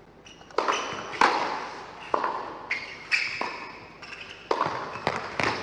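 Tennis rally on an indoor hard court: sharp knocks of racket strikes and ball bounces, about eight in all, spaced half a second to a second apart, each ringing on in the hall's echo.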